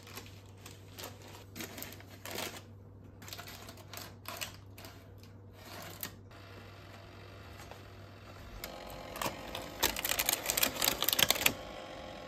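Parchment paper rustling with light knocks as dough is slid into a small oven toaster and its door closed. About eight and a half seconds in a steady hum sets in, and near the end comes a fast run of mechanical clicks as the toaster's timer dial is turned.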